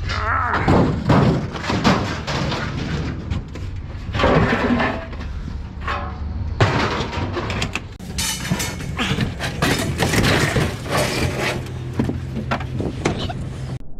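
Heavy metal scrap appliances being shoved and dragged: irregular metal scraping, banging and thuds, over a steady low hum.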